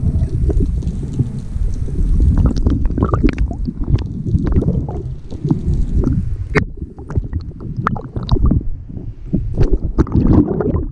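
Muffled underwater rumble of water moving over a camera housing as a freediver swims with fins, with scattered sharp clicks from about two and a half seconds in. Near the end the camera breaks the sea surface with a splash.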